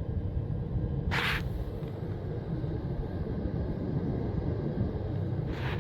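Furnace blower starting up and pushing air through the ductwork: a steady low rumble of rushing air, with no ticking from the metal ducts now that the gaps are taped. A brief hiss sounds about a second in.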